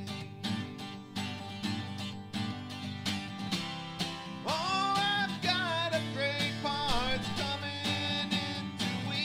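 Country-style background music: acoustic guitar strummed in a steady rhythm, with a melody line coming in about four and a half seconds in.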